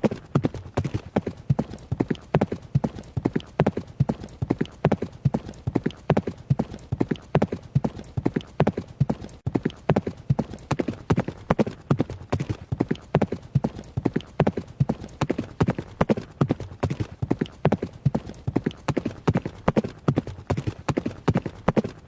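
Hoofbeats of a running horse, sharp strikes in a quick, steady rhythm that never breaks.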